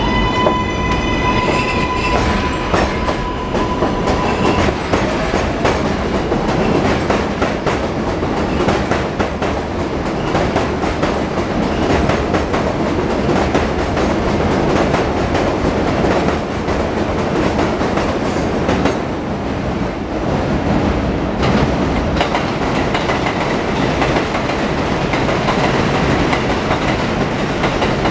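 New York City subway trains of R142/R142A cars running on elevated track. In the first few seconds a rising electric motor whine levels off into a steady tone, then there is a continuous loud rush and clatter of steel wheels on rail as the cars pass close by.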